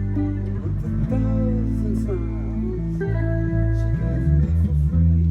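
Live band playing an instrumental passage: guitar over sustained bass notes, with a lead line that bends and wavers in pitch about a second in.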